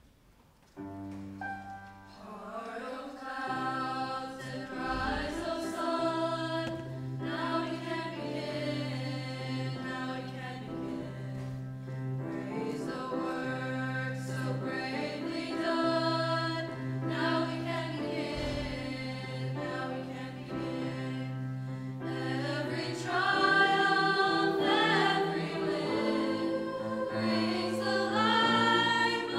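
A high school choir singing in parts, beginning about a second in after a brief hush and growing louder near the end.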